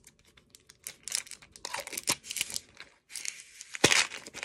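Paper crinkling and rustling as hands handle an Orbit gum bottle and pull paper from it, with a sharp click about four seconds in.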